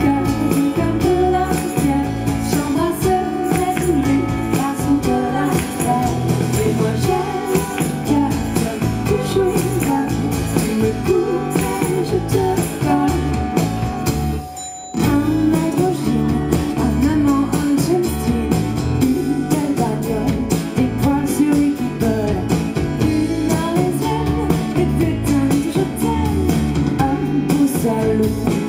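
Live pop band: two women singing over electric bass, with tambourine jingles. The music drops out for a moment about halfway through, then comes back in.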